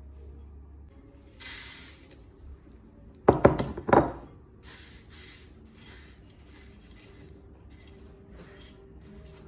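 Glass kitchenware clinking: a short hiss, then a quick cluster of sharp ringing clinks, followed by a run of soft swishes about twice a second.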